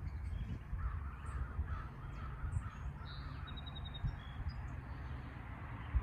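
Crows cawing, with small songbirds chirping high above them and a quick high trill about three and a half seconds in. A steady low rumble runs underneath.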